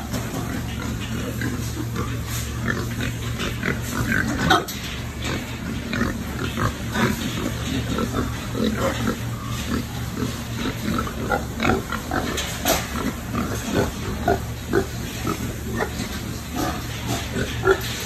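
Many pigs crowded together grunting in short, overlapping calls, over a steady low hum. There is a sharp knock about four and a half seconds in.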